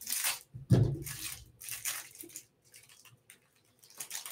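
Clear plastic wrapper on a pack of trading cards crinkling and tearing as it is cut open with scissors and peeled off the cards, in several short rustling bursts.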